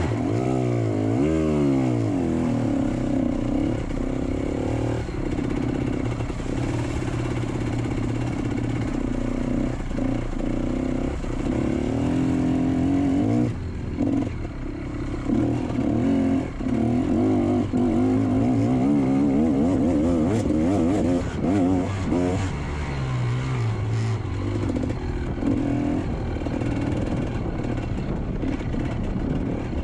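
GasGas MC125 two-stroke motocross bike engine being ridden hard, its pitch rising and falling over and over as the throttle is worked and gears change, with a couple of short drops as the throttle is shut about halfway through.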